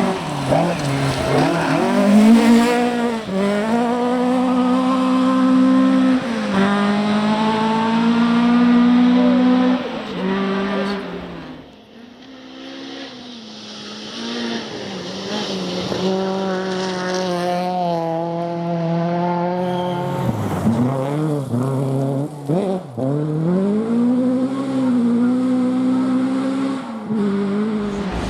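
Rally cars driven flat out on a stage, engines revving high and dropping repeatedly through gear changes and lifts. The sound fades about twelve seconds in, then another run builds up and continues.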